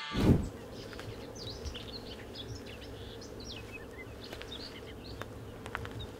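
Outdoor ambience with small birds chirping in many short calls over a steady faint drone and a low rumble. A brief loud low thump comes right at the start.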